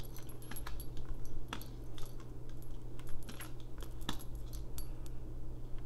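Tarot cards being shuffled and handled, giving a string of irregular light clicks and small clinks over a low steady hum.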